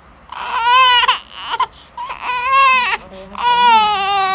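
Three long, high-pitched wailing cries from a human voice, the last one drawn out and slowly falling in pitch.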